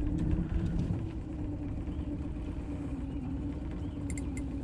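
Boat's outboard motor running steadily at low speed: a steady low hum with a constant tone and rumble underneath. A few short high ticks come near the end.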